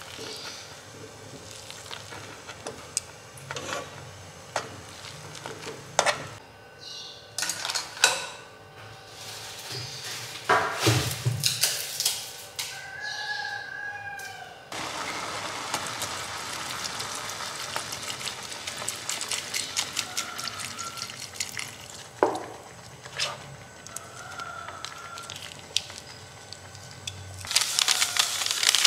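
Instant noodles cooking in a frying pan: metal tongs clicking and knocking against the pan over bubbling water, then a steady sizzling hiss that starts suddenly about halfway through. Near the end, a louder rustle as seasoning powder is shaken in from its packet.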